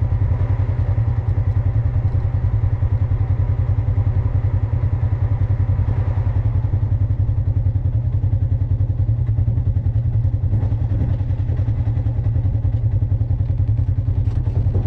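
Off-road vehicle engine running steadily at idle, an even low pulsing rumble.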